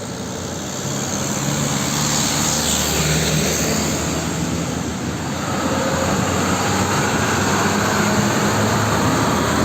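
Water spraying and splashing over a muddy toy tanker truck as it is washed clean, a steady rushing hiss that stops abruptly just after the end.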